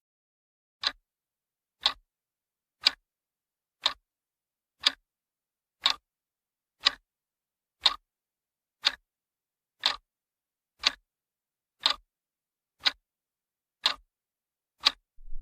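Clock-like ticking sound effect: sharp, evenly spaced ticks, one a second, about fifteen in all.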